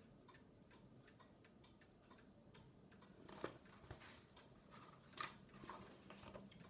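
Near silence: quiet room tone with faint, regular ticking, and a few soft clicks and rustles in the second half.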